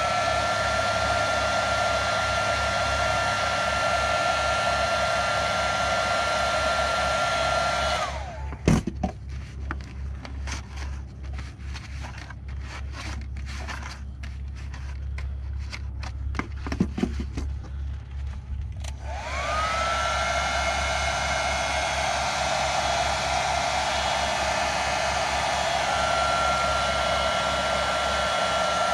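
Heat gun running with a steady fan whine and hiss. About eight seconds in it is switched off and winds down, leaving roughly ten seconds of scattered clicks and crackles. It is then switched back on, spins up and runs steadily again.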